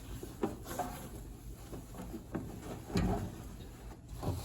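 Cloth wiping the inside of a microwave oven after vinegar steaming, with soft rubbing and a few light knocks against the cavity, the loudest about three seconds in.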